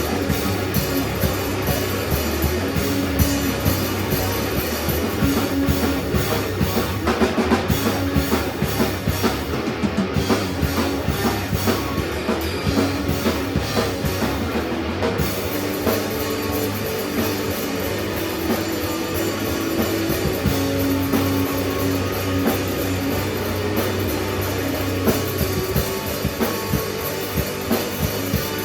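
Rock music: a drum kit keeping a steady beat under guitar.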